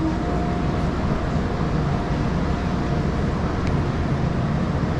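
Steady rumble and hum of a busy train station hall, with faint steady tones over it and no distinct events.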